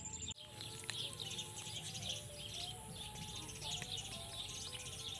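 Soft instrumental background music with birds chirping throughout and a thin, steady high insect drone; the sound briefly drops out just after the start.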